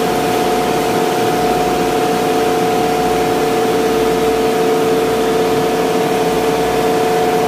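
Ice plant machinery running: a loud, steady mechanical hum with two held tones over a broad whirring noise.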